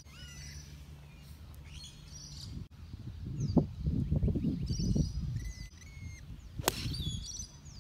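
Birds chirping over an open outdoor background, with a low rumble that comes and goes in the middle. Near the end comes one sharp crack: an 8-iron striking a golf ball off the tee.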